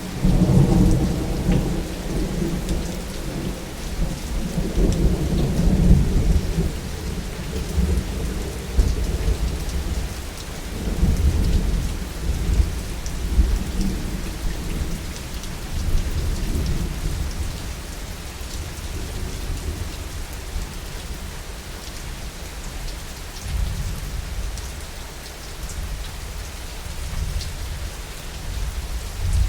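Steady rain falling with rolling thunder: a loud deep rumble breaks in at the start and rolls on, fading, through the first half, with further rumbles later on.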